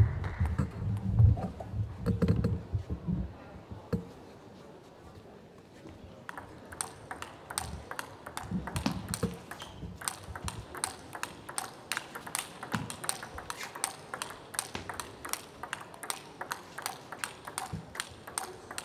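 Table tennis balls clicking sharply off bats and tables, several clicks a second, beginning about six seconds in. Before that, a few seconds of low muffled thumps and noise.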